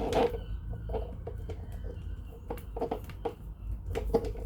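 Irregular clicks and knocks of plastic vacuum-cleaner parts and packaging being handled.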